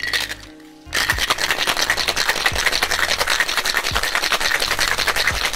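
Ice being shaken hard in a Boston shaker: a fast, continuous rattle of ice cubes against the tin that starts about a second in, after a short knock.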